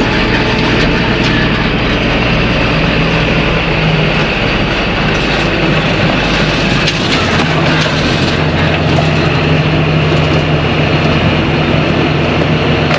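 Tractor engine running steadily under way, with a dense mechanical din; the engine note shifts about seven seconds in.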